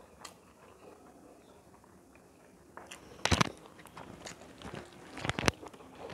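A person biting and chewing grilled chicken close to the microphone: quiet at first, then from about halfway through a few short, sharp crunches and clicks of teeth going into the crisp meat.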